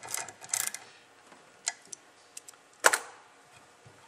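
Ratchet wrench clicking through its last few strokes while tightening the spray gun's fluid tip. It stops a little under a second in, and a few sharp separate clicks follow, the loudest about three seconds in.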